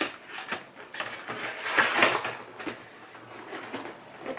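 Large plastic model-kit hull part being put back into its cardboard box: light knocks and rustling of plastic and card, loudest about two seconds in.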